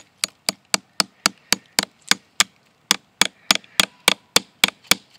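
Hammer driving a nail through a plastic fence insulator into a tree trunk: quick, even strikes about three to four a second, with a short pause about two and a half seconds in.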